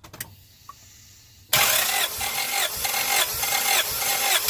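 Starter motor cranking a 1996 Honda Prelude Si's H23A1 four-cylinder engine for a dry compression test, starting about a second and a half in, with an even pulsing of about two beats a second. The engine turns over without firing while the gauge builds to its reading.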